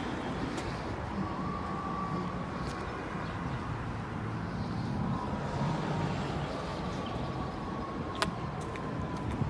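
Street traffic noise: a steady rumble of passing vehicles, with a faint high whine that slides slowly lower and a single sharp click near the end.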